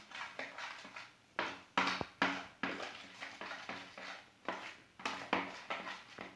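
A foamy slime mixture of slime gel, water and shaving foam being stirred in a container, a run of irregular stirring strokes at about two a second.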